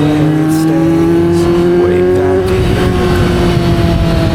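Motorcycle engine running under way, its pitch climbing slightly and then easing back down.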